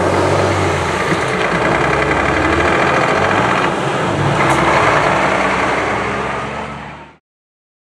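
Heavy diesel engines running: a Volvo L70G wheel loader manoeuvring and a Scania 114G 380 truck driving past close by, its engine loudest about four to five seconds in. The sound fades out to silence about seven seconds in.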